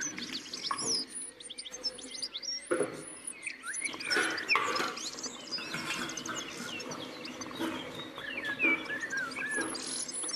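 Birds chirping and twittering: many short whistled calls that rise and fall and overlap, with a repeated high pip.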